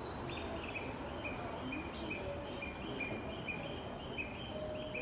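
A run of short, high electronic chirps at two alternating pitches, a few a second, over the steady low hum inside a train carriage.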